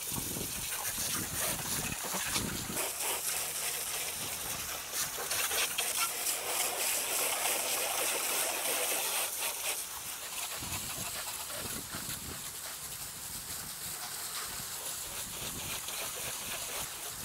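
A powerful jet of water from a garden-hose spray nozzle hissing and splattering over a car's engine bay, rinsing off the cleaner. The spray is a little louder for the first ten seconds or so, then softer.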